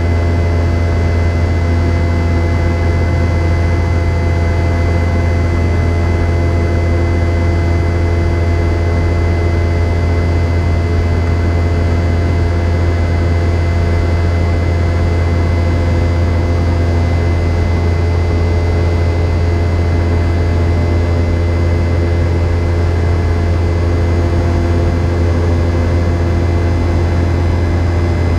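Boeing 717's rear-mounted Rolls-Royce BR715 turbofan engines running in flight, heard from a cabin seat right beside them: a loud, steady drone with a deep hum and a few constant higher tones.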